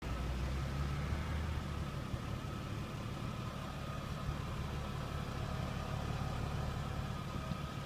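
A Chrysler Crossfire's 3.2-litre V6 idling through an aftermarket Crooketuning exhaust system, a steady low rumble from the twin tailpipes.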